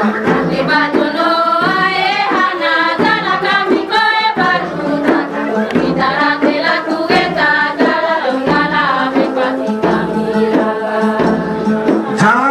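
Voices singing together, a traditional song accompanying a line dance, over a steady low beat about once a second.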